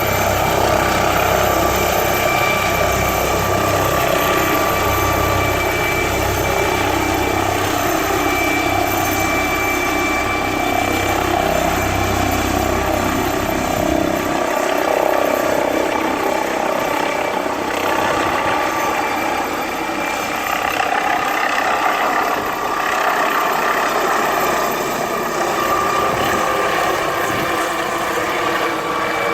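MD 900 Explorer twin-turbine helicopter running, a steady high turbine whine over rotor noise; the low rumble drops away about halfway through.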